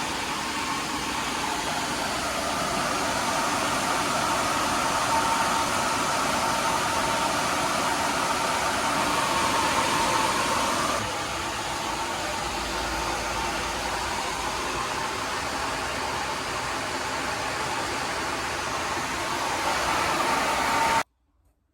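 Drum blower fan from a ducted gas heater running at full speed, a steady rush of air with a faint whine. It gets a little quieter about halfway through and stops abruptly near the end.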